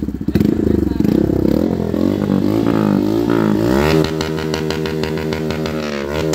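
Bajaj Pulsar N160's single-cylinder engine revved at a standstill through an aftermarket SC Project-style slip-on muffler. The engine note rises and falls over several throttle blips, then holds at a steadier, higher pitch for the last couple of seconds.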